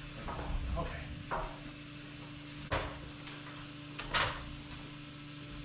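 A steady electrical hum, with a few scuffs and clatters early on and two sharp knocks, about three seconds and four seconds in.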